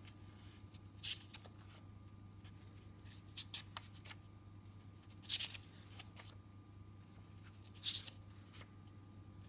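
Paper pages of a thick book turned by hand one at a time: about four short, crisp swishes, over a low steady hum.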